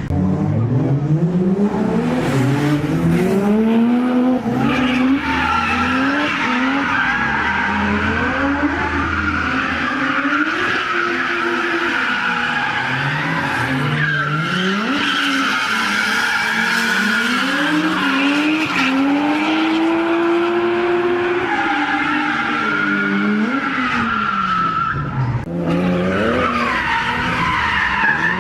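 Drift cars at full throttle, their engines revving up and down again and again as they slide, with tyres squealing.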